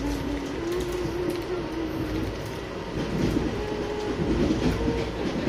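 Passenger train running, heard from inside the coach: a steady rumble with a faint wavering tone over it.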